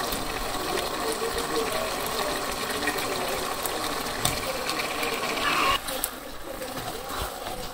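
Fish, potatoes and tomatoes sizzling in spiced oil in a pan while a spatula stirs and scrapes them, the dry-sauté (kosha) stage of a curry. The sizzle and scraping swell about five and a half seconds in, then drop off suddenly.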